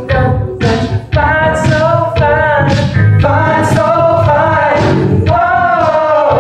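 A group of teenage boys singing in harmony, the voices gliding through sustained sung notes.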